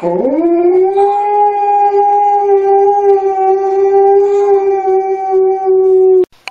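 A husky-type dog howling: one long howl that slides up in pitch at the start, holds a steady pitch for about six seconds, then cuts off abruptly.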